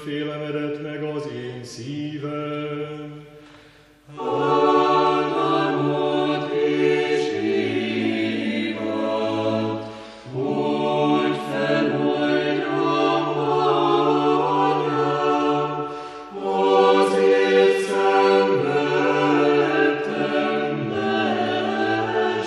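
Orthodox church choir singing unaccompanied chant in long phrases, with short breaks between them about four, ten and sixteen seconds in. Low voices hold a steady note under the moving upper parts.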